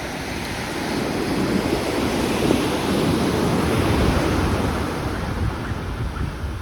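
Surf washing onto the shore, swelling to a peak a couple of seconds in and then easing off, with wind noise on the microphone.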